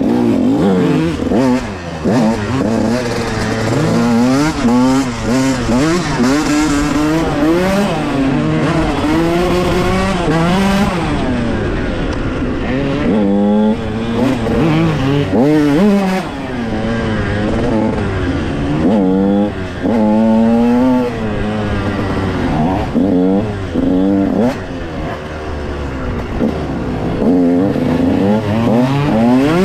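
Dirt bike engine revving up and dropping back again and again, its pitch climbing and falling every second or two as it is ridden along a trail.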